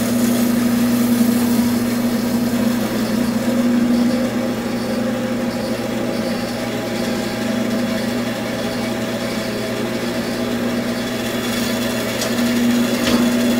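Bandsaw running unloaded with a steady electric-motor hum while its upper-wheel tracking is set so the blade rides toward the back of the wheel. A couple of light clicks near the end.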